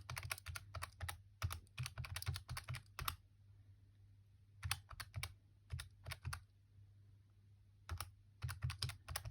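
Keys of a handheld calculator being pressed in quick runs of taps while figures are entered, with short pauses between the runs.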